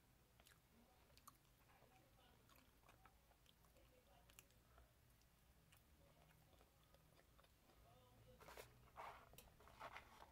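Faint chewing of breaded fried chicken strips, with small wet mouth clicks. Near the end, a few louder rustles as the paper food box is handled.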